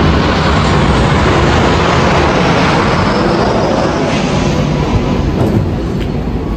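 Steady, loud rushing noise of a vehicle on the move.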